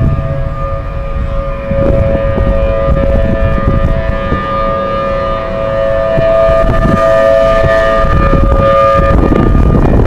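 Outdoor tornado warning sirens sounding a steady tone on several pitches at once, fading briefly near the end. Under them, a heavy low rumble of wind on the microphone.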